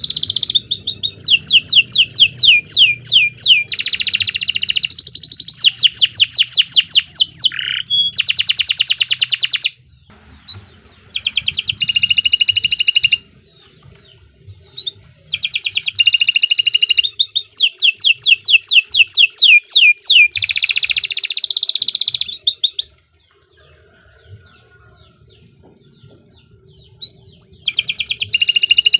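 Domestic canary singing in long, vigorous bouts of fast, rolling trills: rapid runs of the same sweeping note repeated many times a second, changing from one phrase to the next. The singing breaks off for about a second near ten seconds in and for about four seconds near the end.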